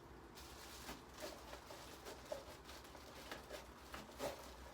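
Faint handling noises: light taps and clicks of items being moved about, a few each second.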